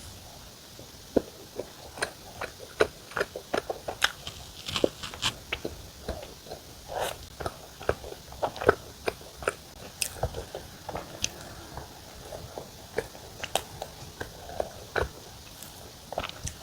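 Close-miked eating of a mocha cream sandwich bread: biting and chewing soft bread and cream, with irregular wet mouth clicks and smacks.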